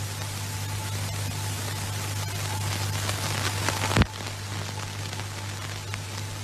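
Hiss and a steady low hum from an old film soundtrack. The hiss swells into a crackle that ends in a sharp loud click and cuts off about four seconds in, at a splice, then goes back to plain hiss and hum.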